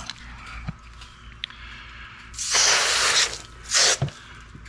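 Garden hose pistol-grip spray nozzle squeezed in two bursts of hissing spray: the first about halfway through, lasting nearly a second, and a shorter one just after. The water is rinsing out the belly cavity of a freshly gutted pompano.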